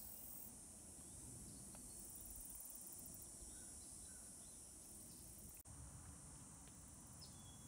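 Faint, steady high-pitched drone of insects in summer vegetation, with a few faint short bird chirps.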